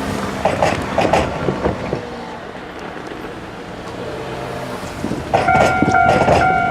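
Kintetsu 1230 series electric train's wheels clicking over the rail joints as it runs past, fading over the next few seconds. About five seconds in, a loud steady tone with several pitches sets in and holds.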